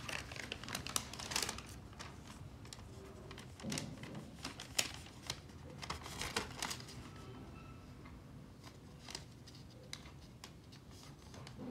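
Clear plastic clamshell packaging crackling and clicking as it is handled, a scatter of sharp crinkles that thin out in the second half.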